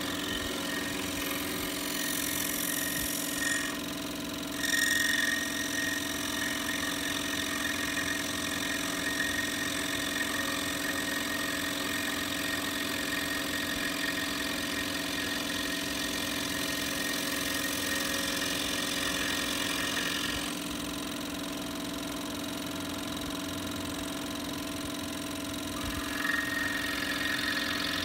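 Scroll saw running with its blade going up and down through a small wooden block: a steady machine hum under a higher cutting rasp that gets louder about five seconds in, eases around twenty seconds and returns near the end.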